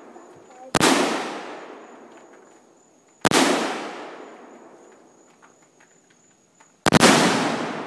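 Three single AK-47 rifle shots a few seconds apart, each report trailing off in a long echo through the woods. The last, near the end, is the loudest, with a second boom right on top of the shot as the Tannerite target detonates.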